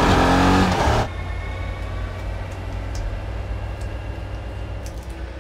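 Motorcycle engine running loud with its pitch falling, cut off abruptly about a second in. A steady low rumble follows.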